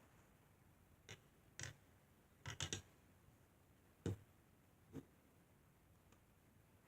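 Near silence broken by a handful of short, faint clicks and knocks at irregular intervals, the sharpest a little after four seconds in.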